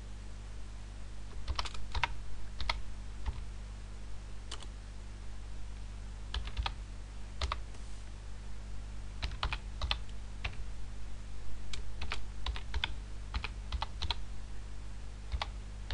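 Typing on a computer keyboard: irregular runs of keystrokes with short pauses between them. A steady low hum runs underneath.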